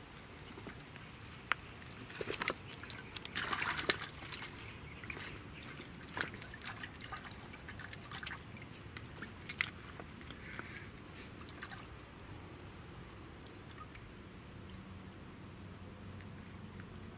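Small splashes and drips of lake water, with scattered sharp clicks during the first ten seconds and a brief louder rush of noise about three and a half seconds in; quieter water sounds after that.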